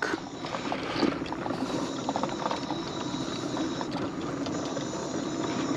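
Vehicle rolling slowly along a paved park road: a steady low running hum with scattered small clicks and crackles from the tyres.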